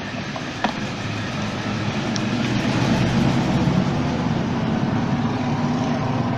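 Steam ironing station running as its boiler heats up: a steady hiss with a low hum that slowly grows louder.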